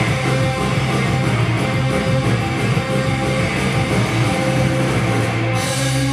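Loud rock music with distorted electric guitar, played to drive sound-activated stage lights; the highest frequencies drop out about five and a half seconds in.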